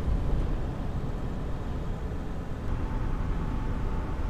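Steady road noise and engine rumble inside a moving pickup truck's cab, mostly low. A faint steady hum comes in near the end.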